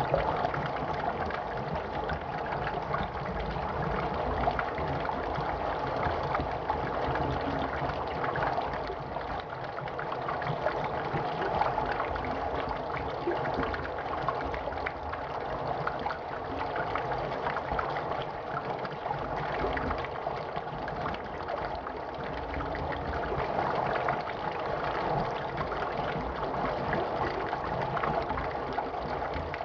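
Water running steadily, a continuous rushing noise with no breaks.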